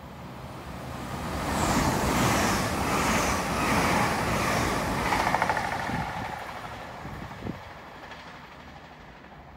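Great Western Railway Class 800 IET passenger train passing close by: the rush of wheels on rail swells over a second or two, stays loud for about four seconds, then fades as the train draws away. There is a short knock near the end.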